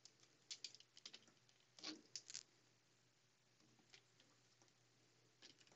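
Faint clicks and scrapes of fingers and a small tool working a ferrite bead off a wire in an opened ATX power supply. A cluster of clicks comes in the first two and a half seconds and one more near the end, over a faint low hum.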